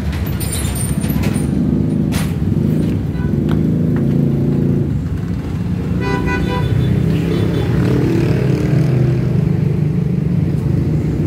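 Road traffic running steadily past, with a short horn beep about six seconds in.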